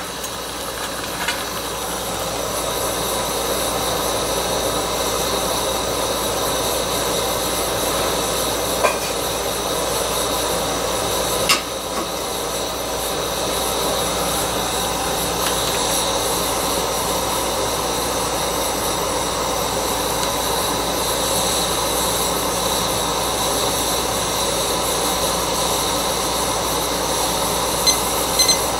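Canister gas camp stove burner hissing steadily, growing a little louder over the first couple of seconds, with a few light clicks and knocks from handling.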